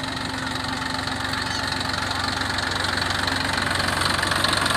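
Engine of paddy-threshing machinery running steadily, with a rushing noise over its low beat, gradually getting louder.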